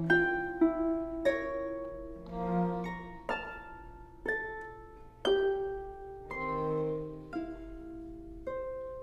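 Chamber music from a harp and cello trio. The harp plucks single notes about once a second, each ringing away, while the cello adds a low held note twice.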